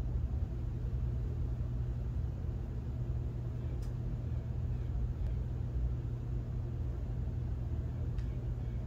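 A steady low rumble, with three faint clicks about four, five and eight seconds in.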